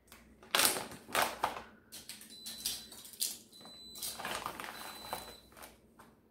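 Handling noise of knocks and rustles, with three short, high, steady beeps from an Instant Pot's control panel as its buttons are pressed to switch it to sauté mode.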